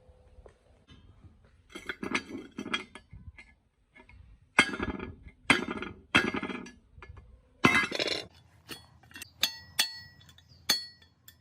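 Metal clinks and knocks: a series of sharp strikes in clusters, the later ones short and ringing.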